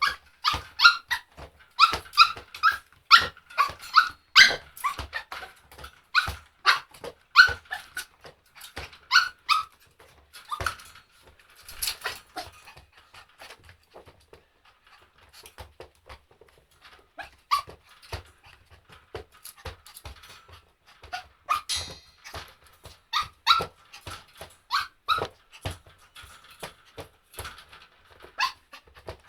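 A dog barking over and over in short, high-pitched barks. They come in quick runs, with a lull of a few seconds in the middle.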